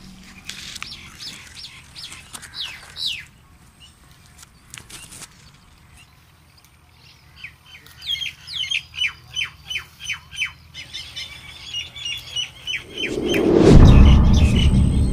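Birds chirping: a few short downward-sliding chirps in the first three seconds, then a fast run of repeated chirps, about five a second, for several seconds. Near the end a loud low rumble swells up and becomes the loudest sound.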